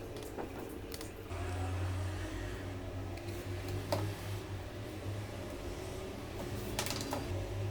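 A low, steady electric hum from a homemade bucket humidifier, a small fan and a 24 V ultrasonic mister, running; it starts about a second in. There is a sharp click midway and another near the end.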